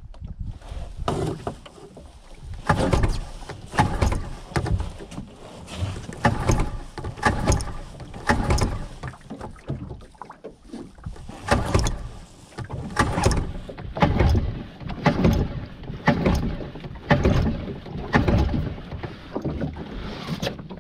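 A small boat being paddled across a lake, each stroke a splash and swirl of water, about one a second in a steady rhythm.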